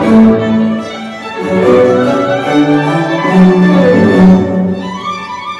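Bowed string music, violin with cello, playing a slow line of held notes.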